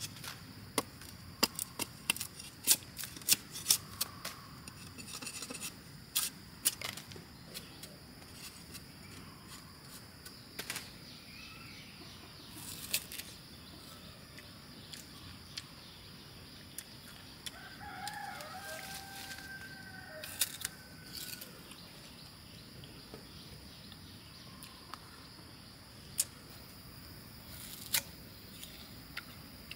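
A heavy knife shaves and chops the hard rind off a purple sugar cane stalk: a fast run of sharp cracks for the first several seconds, then only scattered snaps. A rooster crows once about two-thirds of the way in, and near the end there is a single crunch as the peeled cane is bitten. A steady high insect buzz runs underneath.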